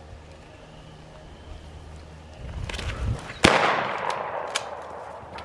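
A single loud, sharp crack about three and a half seconds in, with an echo that dies away over a second or so.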